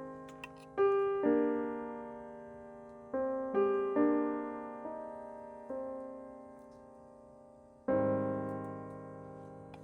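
Background piano music: slow, sparse notes and chords, each struck and left to ring out and fade.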